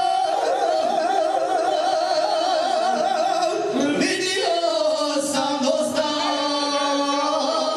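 Two men singing together into microphones, holding long notes with a wide, wavering vibrato; the voices move to a new held note about four seconds in.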